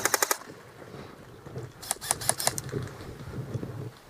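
Airsoft rifle firing two short full-auto bursts of rapid clicking shots, one right at the start and another about two seconds in.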